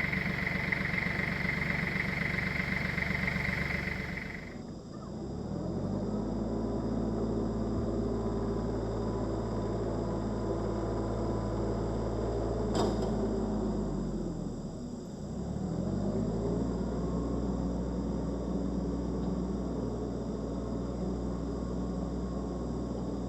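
Chainsaw engine running: high and loud for the first four seconds or so, then dropping to a lower, steady idle. Around two-thirds of the way in it sags briefly and picks up again. A single sharp click sounds a little over halfway through.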